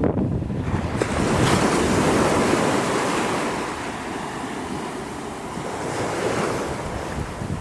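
Small ocean waves breaking and washing up the sand: a hiss that swells about a second in and eases off toward the middle, with wind on the microphone.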